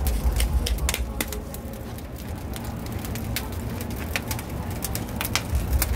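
Burning lump charcoal in a barbecue pit crackling: scattered sharp, irregular crackles over a steady low rumble.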